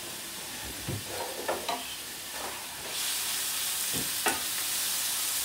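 Chopped onion sizzling in oil in a stainless steel pot, stirred with a wooden spoon that knocks against the pot several times; the sizzle grows louder about three seconds in. The onion is being gently softened and is about half done.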